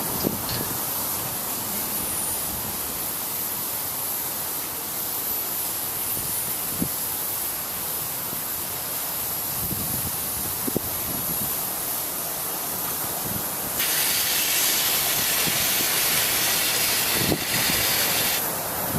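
Steady hiss of steam escaping from a whistle cart, with no whistle tone sounding. About 14 s in the hiss grows louder and sharper for a few seconds, then falls back.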